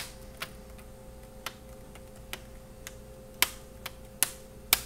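Plastic screen bezel of a Clevo W650SR laptop being pressed back on, its clips snapping into place in a string of about nine sharp, irregular clicks, the loudest near the end.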